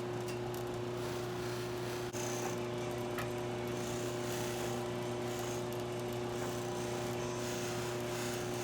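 Electric buffing wheel motor running with a steady hum while carnauba wax is buffed onto a briar pipe bowl. The sound dips briefly about two seconds in.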